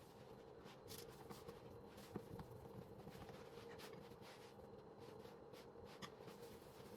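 Near silence: faint room tone with a steady low hum and a few soft clicks and taps, the sharpest about two seconds in.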